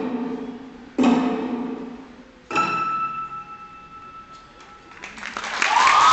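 Show music for the skating routine: loud struck chords, each left to ring and die away, the last holding a high ringing note. About five seconds in the music ends and the crowd breaks into loud cheering and applause.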